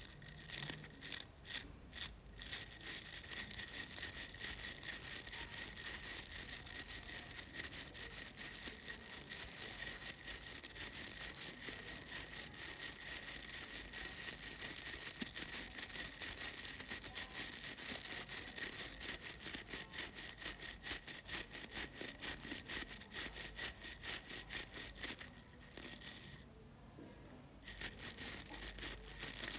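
Quick, dense scratching and rubbing through hair during a scalp massage, with a short pause near the end.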